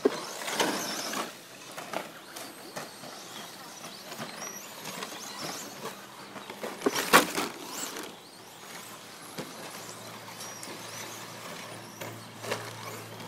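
Radio-controlled short course trucks racing on a dirt track, with a sharp, loud clatter about seven seconds in.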